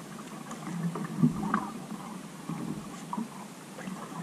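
Canoe being paddled across a lake: water swishing and lapping against the hull, with a few small splashes and knocks.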